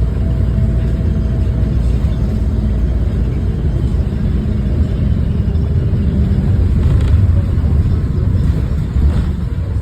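Diesel engine of a First bus, fleet number 69501, running with a heavy low rumble and a faint turbocharger whine.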